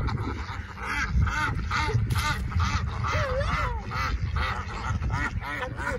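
A flock of ducks quacking, many short calls overlapping several times a second.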